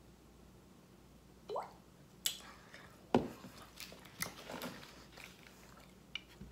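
Swallowing a drink, then a thick glass set down with a thump on a wooden board about three seconds in, followed by a few small clicks and wet mouth sounds.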